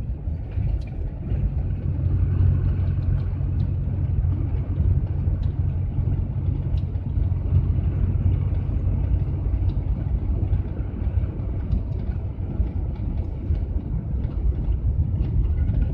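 GAZelle van driving at town speed, heard from inside the cab: a steady low engine drone with road and tyre noise.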